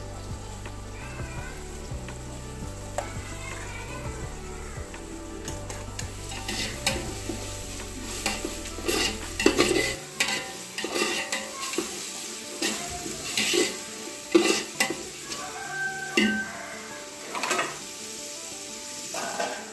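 Onions frying in oil in a large aluminium pot, sizzling steadily, while a steel ladle stirs them. From a few seconds in, the ladle scrapes and clanks against the pot at irregular strokes.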